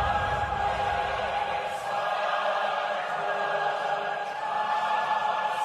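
Choral music with long, held voices, a low rumble under the first two seconds.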